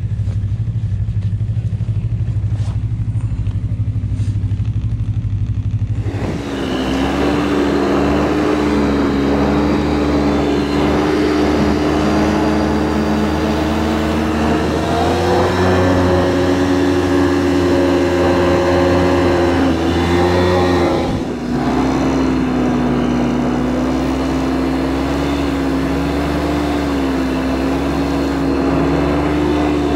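Snowmobile engine running at a steady low idle. About six seconds in it revs up and the sled gets under way with a rush of noise. The engine pitch steps up again around fifteen seconds, dips briefly a little past twenty, then holds steady at speed.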